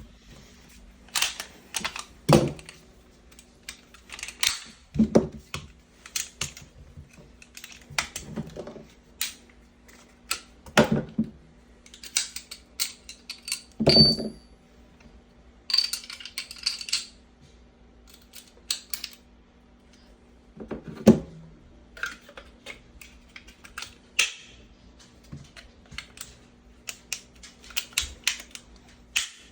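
SIG Sauer P320 M17X pistol parts clicking and clacking as the gun is field-stripped and reassembled: irregular sharp metal-and-polymer clicks and knocks, with louder clacks about 2, 5, 11, 14 and 21 seconds in. A brief high ring sounds about 14 seconds in, over a faint steady hum.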